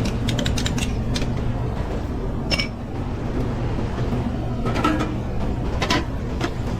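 Commercial kitchen line at work: metal utensils and pans clinking and clattering over a steady low hum. One clink about two and a half seconds in rings on briefly.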